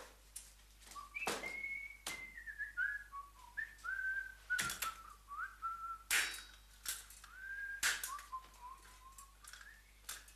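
A man whistling a wandering tune while he tinkers, with sharp knocks and clinks from the metal wheels and parts he handles, loudest about six and eight seconds in.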